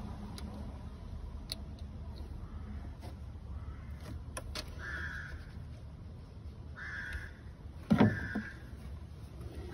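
Crows cawing a few times in short calls, over a steady low rumble. A single sharp thump about eight seconds in is the loudest sound.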